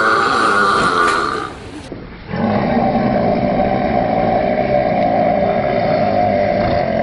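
Two long, loud human belches. The first stops about a second and a half in. After a short gap a second, lower belch starts and holds steady for over five seconds.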